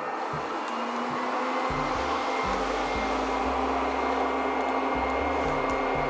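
Verefa V60 Pro robot vacuum running under remote control: a steady suction noise that grows slightly louder, with a low hum joining about a second in.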